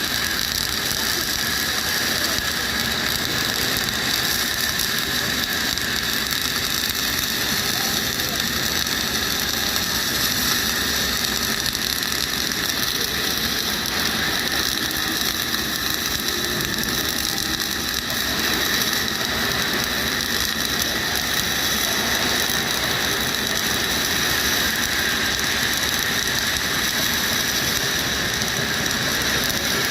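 Flux-cored arc welding arc, 1.2 mm wire under an 80% argon / 20% CO2 gas mix, crackling steadily without a break as a fillet weld is run.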